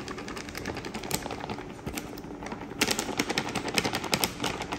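Crinkly plastic flour bag crackling as it is squeezed and shaken to pour flour into a glass bowl: rapid irregular crackles, thicker and louder from a little past halfway.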